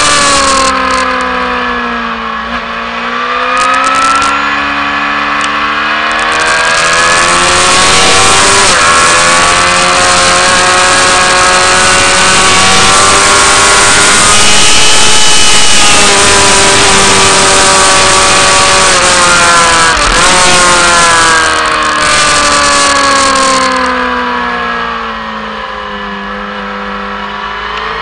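Motorcycle engine at racing speed, heard from a camera on the bike: revs drop at the start, climb and hold through a long fast stretch with heavy wind noise on the microphone, fall again as it slows for a corner, and rise once more at the end.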